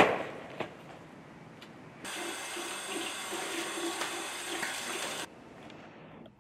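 A sharp thump right at the start. Then a tap runs into a bathroom sink while hands are rubbed under the stream for about three seconds, starting and stopping abruptly.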